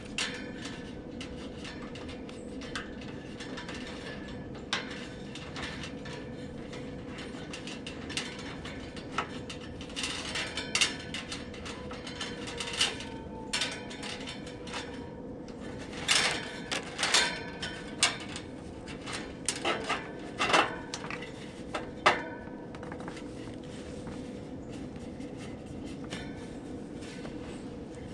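Scattered metallic clicks, taps and knocks of hands and tools working on the condenser fan motor's parts and wiring, busiest in a few short flurries, over a steady faint hum.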